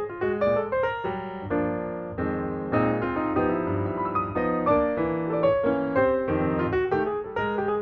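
Instrumental background music with a piano-like keyboard playing a lively melody over chords.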